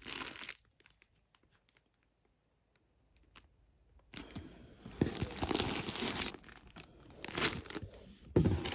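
Packaging crinkling and rustling as it is handled, with sharp crackles. It is almost silent for the first few seconds; the handling starts up about four seconds in and keeps going.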